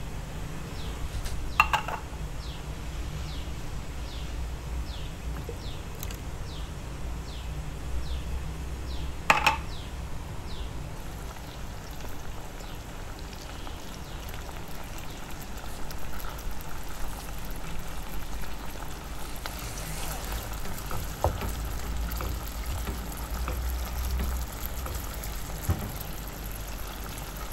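Canned fish in tomato sauce emptied from the tin into a nonstick frying pan, with a sharp knock about two seconds in and a louder one near nine seconds. The sauce then heats in the pan with a soft, steady crackling hiss, and a wooden spatula knocks and scrapes a few times near the end.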